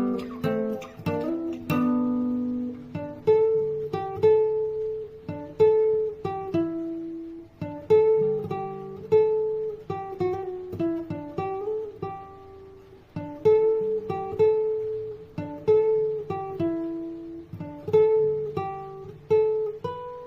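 Background music: a plucked acoustic guitar playing a melody of single notes, each struck sharply and dying away.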